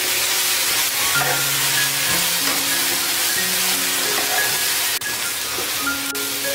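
Fish cakes, onion and chili sizzling in oil in a hot pan while being stir-fried quickly with a silicone spatula, coated in freshly added chili sauce.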